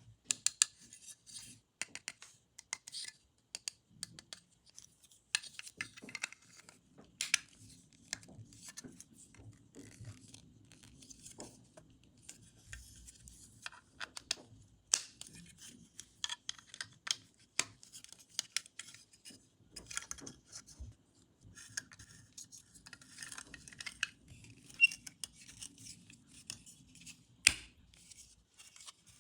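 Toy packaging being handled and opened at close range: irregular clicks, scratching and crinkling of plastic and card, with a few sharper snaps.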